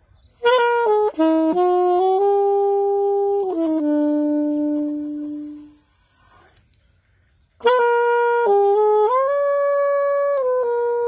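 Saxophone played with a Lefreque sound bridge clamped across the mouthpiece–neck joint, which the player says carries the vibration past the cork so more of the tone comes through. It plays a phrase of held melodic notes, breaks off for about two seconds, then starts a second phrase that runs on.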